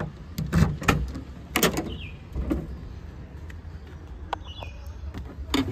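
Boot lid of a Maruti Suzuki Swift Dzire being unlatched and opened: a run of sharp clicks and knocks, the loudest about a second and a half in, with a few more knocks from handling the lid and boot lining afterwards.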